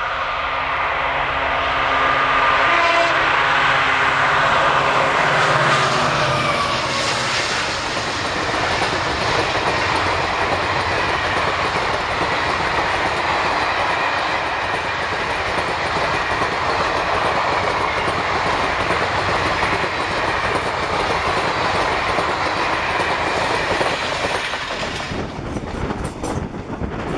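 EMD WDP-4B diesel locomotive passing close at speed, its horn chord sounding on the approach and dropping in pitch as it goes by about six seconds in. Its passenger coaches then rush past with steady wheel rumble and clickety-clack over the rail joints, giving way near the end to quieter wheel noise heard from aboard a train.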